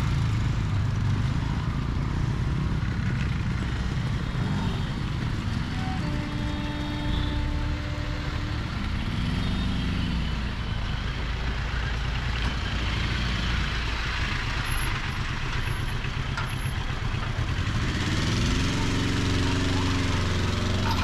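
Road traffic crossing over the rails at a level crossing: motorcycle and scooter engines running, then a heavy lorry's engine revving as it pulls over the tracks near the end.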